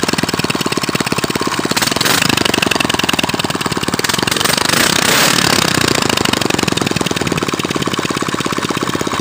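Freshly rebuilt Honda GX340 single-cylinder four-stroke engine running on its own, a fast, even, unbroken firing beat that swells slightly a couple of times.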